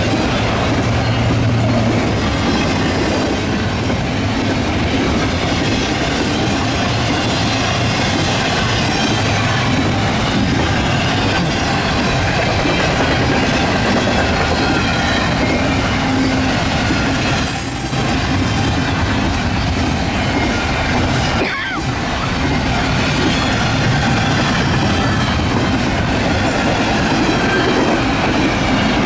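Double-stack intermodal freight train's container well cars rolling past: a loud, steady rush of steel wheels on rail with clacking over the joints and a few brief high wheel squeals.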